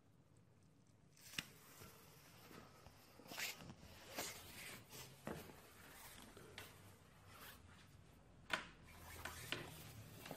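Faint handling noise: scattered sharp clicks and rubbing, starting about a second in, as the camera is moved about and things are handled at the back of an LCD TV.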